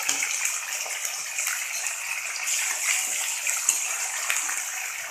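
Hot oil sizzling steadily with small crackles as green chillies fry in a tempering of mustard seeds, urad dal, chana dal and cashews in a pan.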